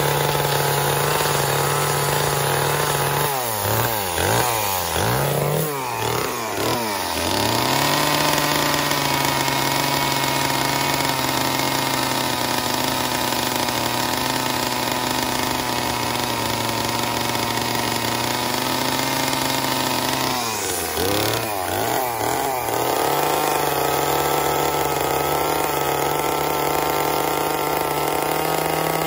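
Gas chainsaw running near full throttle while carving wood. Its pitch drops and climbs back several times about three to seven seconds in, and again about twenty-one seconds in.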